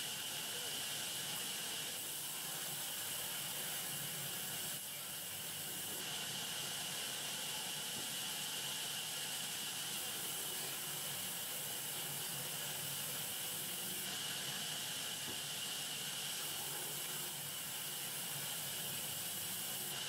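Large sawmill band saw running steadily as timber is fed through it: an even, high hiss with a steady whine near the top.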